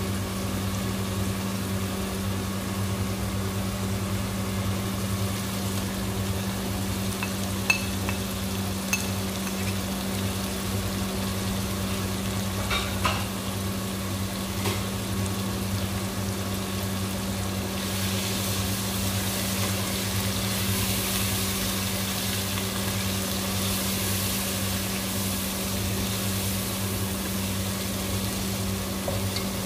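Food sizzling as it fries in a pot and is stirred, with a few sharp clinks of the utensil against the pot, over a steady low hum. The sizzle grows louder about two-thirds of the way through.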